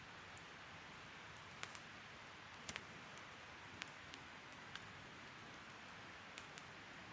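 Wood fire crackling: a faint steady hiss with sharp snaps and pops at irregular spacing, about nine in all, some in quick pairs.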